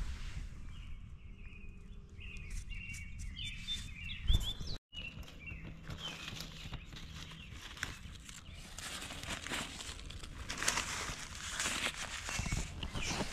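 Dry fallen leaves rustling and crackling as a hand grabs and gathers them off the ground, loudest in the last few seconds. Earlier, before a cut, small birds chirp.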